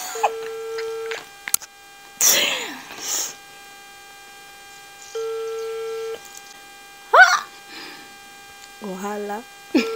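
Phone ringback tone through a mobile phone's loudspeaker: a steady beep about a second long, twice, about four seconds apart, as an outgoing call rings unanswered. A burst of laughter comes between the rings.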